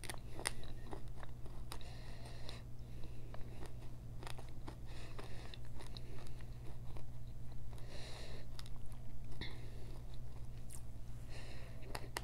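Close-miked chewing of broken pieces of Mexican clay pot, with sharp crisp crunches scattered throughout, over a low steady hum.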